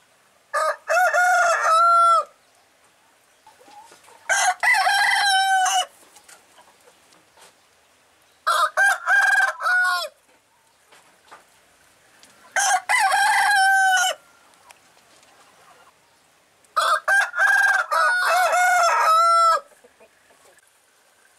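Rooster crowing five times, about every four seconds, each cock-a-doodle-doo lasting one and a half to three seconds, the last one the longest.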